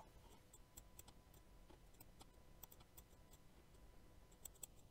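Near silence: room tone with faint, scattered computer mouse clicks.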